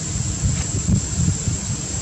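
Wind buffeting the microphone: an uneven low rumble that swells and eases in small gusts, under a thin steady high whine.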